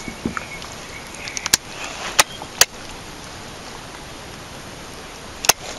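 Four sharp clicks spread through a few seconds, over a steady background hiss.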